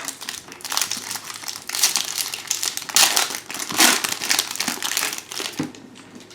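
Crinkling of a trading-card pack's foil wrapper and cards being handled, in irregular rustles that fade out near the end.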